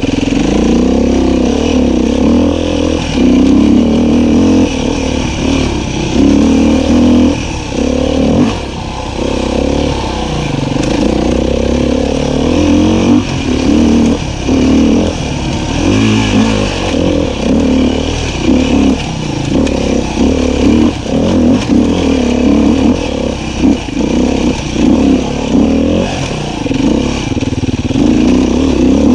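Beta 500 RR-S dirt bike's single-cylinder four-stroke engine running under constantly changing throttle, revving up and dropping back every second or so.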